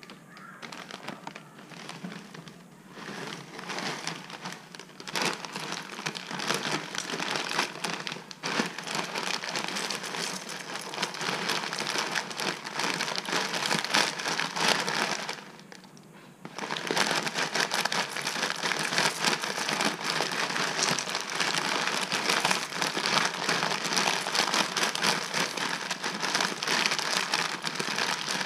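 Foil inner bag of a cereal pack crinkling and rustling as it is handled and tipped to pour flakes into a bowl of milk. The crackling builds over the first few seconds, stops for about a second a little past halfway, then resumes.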